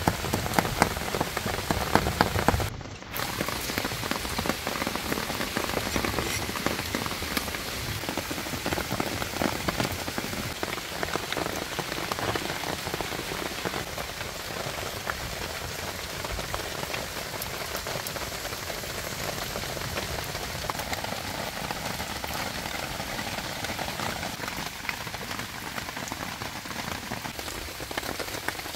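Rain falling steadily, a dense patter of drops. It is heavier for the first few seconds, breaks off briefly about three seconds in, then carries on more evenly.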